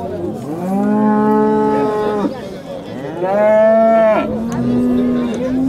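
Cattle mooing: a long moo of about two seconds, then a higher-pitched moo about three seconds in, followed by lower, steadier moos.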